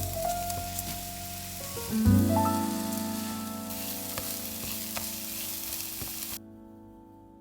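Food sizzling as it fries in a pan, over soft background music with sustained notes. The sizzling cuts off suddenly near the end, leaving the music.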